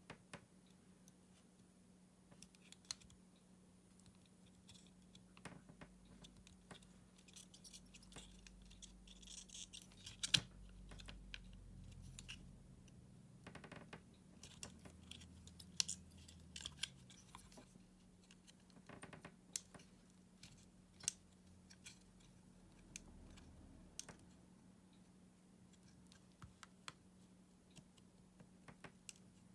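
Hands working on a Makita cordless screwdriver battery pack: scattered small clicks, taps and scratches of plastic and metal parts being handled, some sharper than others, over a steady low hum.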